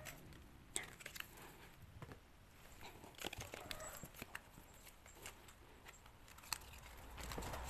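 Faint handling of packaging: soft crinkling with a few light clicks, as album and photocard wrappers are opened.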